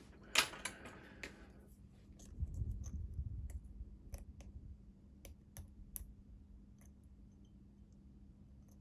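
Lock pick working the pins inside a Master Lock 6835 padlock under tension: scattered, irregular small metallic clicks as the pins are lifted in a false set, with a short low rumble of handling in the middle.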